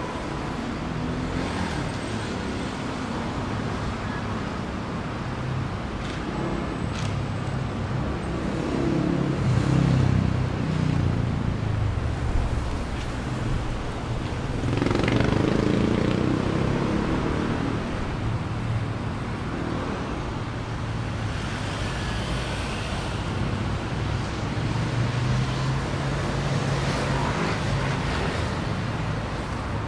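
Road traffic on a busy city avenue: a continuous wash of passing cars, with louder vehicles going by about ten seconds in and again about fifteen seconds in.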